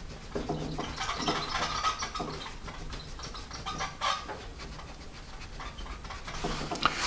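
A pink Pink Carnation block eraser rubbing back and forth over pencil graphite on paper, making a string of uneven, scratchy strokes.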